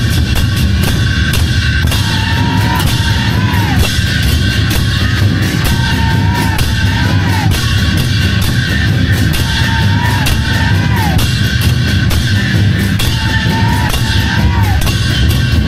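A Chinese drum troupe playing big drums in a fast, dense, continuous rhythm. Over it a drawn-out high call, bending at its end, comes four times about four seconds apart.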